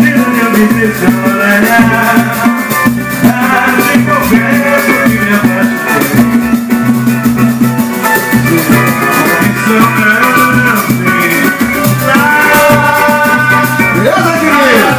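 Live samba (pagode) played by a small group: cavaquinho and acoustic guitar strumming over a steady low beat from a tantã hand drum, with fast pandeiro jingles on top.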